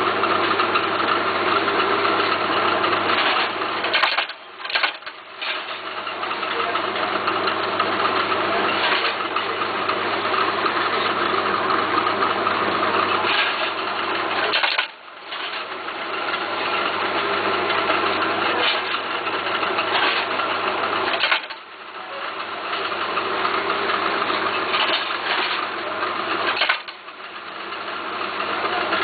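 Twill tape measuring and cutting machine running with a steady motor hum. The sound drops away briefly about four times and builds back up over a second or two after each drop.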